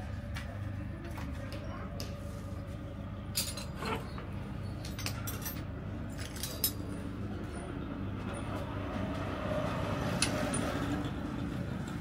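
Scattered metal clinks and taps of tools and bicycle parts, a handful of sharper ones, over a steady low rumble of road traffic.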